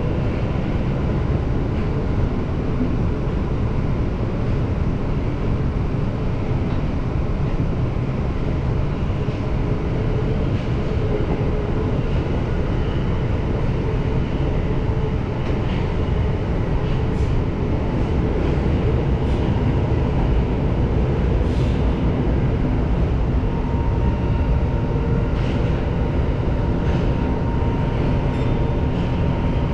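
Tokyo Metro Marunouchi Line subway train running through a tunnel, heard from on board: a steady rumble of wheels on rail with a faint steady whine. Scattered faint clicks come in during the second half.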